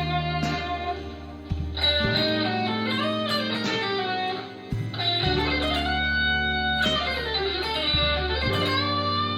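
Harley Benton Fusion III HSS electric guitar played with overdrive, a lead line of sustained notes with string bends, over low sustained bass notes.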